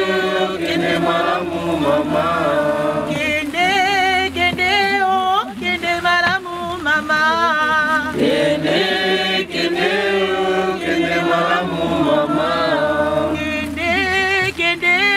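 A group of voices singing a slow funeral hymn together, with long wavering held notes.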